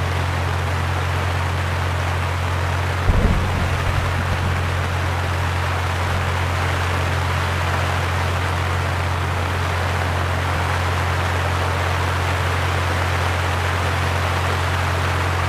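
Steady rain hiss over a constant low hum, with one brief low thump about three seconds in.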